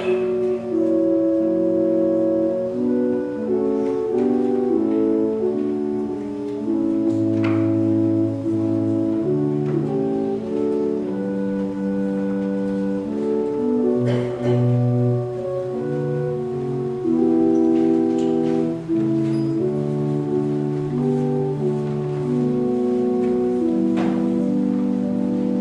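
Organ music in a large hall: slow, held chords that change in steps over a moving bass line, with a few soft knocks from the room.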